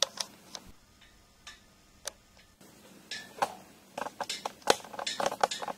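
A spoon or spatula clicking and scraping against a stainless steel pot while stirring crumbled sausage as it browns. The taps are irregular, a few at first and then a quick run of them over the last two seconds or so.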